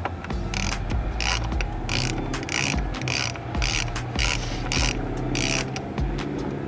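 A hand socket ratchet wrench is worked back and forth, its pawl clicking in about ten short rattling bursts, roughly two a second. The bursts stop shortly before the end.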